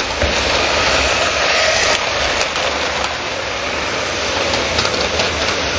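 LEGO trains running on plastic track: a steady whir of small electric train motors and wheels clattering over the track, with a low rumble underneath and a few faint clicks.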